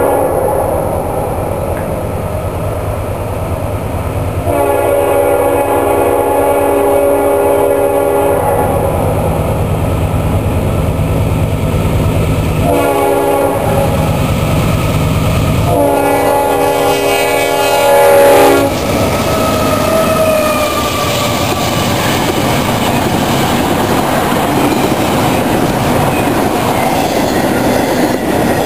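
Diesel freight locomotive horn sounding the grade-crossing signal (long, long, short, long) over the low rumble of the approaching engines; the last long blast is the loudest, as the locomotives reach the crossing. The train then runs past close by, its intermodal well cars clattering over the rail joints.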